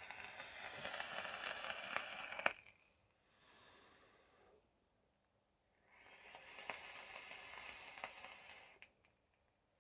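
Two long drags on a Goon 1.5 clone dripping atomizer (RDA), each lasting about two and a half seconds: the coils sizzle and crackle under the rush of air through the airflow. Each drag is followed by a softer, breathy exhale.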